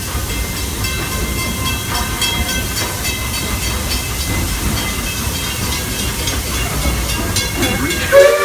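Steam-hauled passenger train rolling along the track, with a steady rumble, hiss, light clicks and thin high-pitched squeals from the wheels. Near the end the steam locomotive's whistle starts to blow, a loud chord of several tones.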